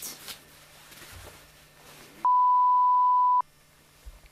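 A censor bleep: a single steady, pure, high beep dubbed over the soundtrack about two seconds in, lasting just over a second and much louder than anything around it. It is surrounded by faint room tone with a low hum.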